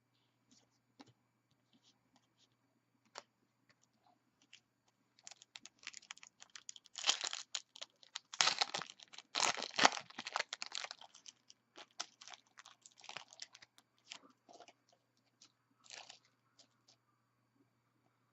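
Foil trading-card pack wrapper crinkling and tearing, with cards being handled. A few light clicks come first, then a run of loud crackling from about five to eleven seconds in, then more scattered clicks.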